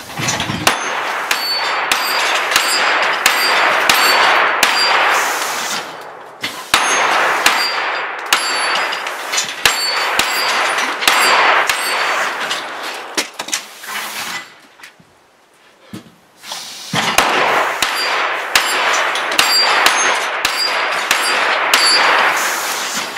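Rapid handgun fire at steel plate targets, the plates clanging and ringing with each hit, in three fast strings. A brief pause about six seconds in and a longer one in the middle are the reloads.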